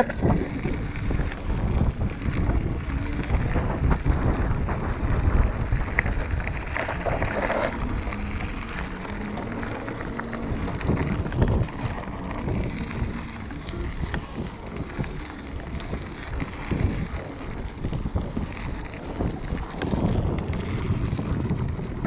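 Iron Horse Unity 3.2 mountain bike rolling along a gravel trail: tyres crunching over loose gravel and the bike rattling, under steady wind buffeting the microphone.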